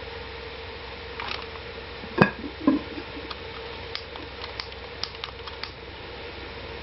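A sharp knock about two seconds in and a duller thud half a second later, then a scatter of light clicks and ticks, over a steady hum.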